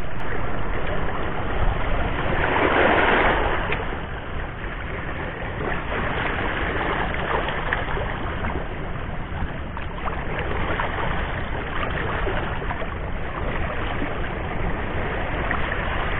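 Steady rushing wash of small waves lapping on a rocky breakwater shore, with a louder surge about two to three seconds in.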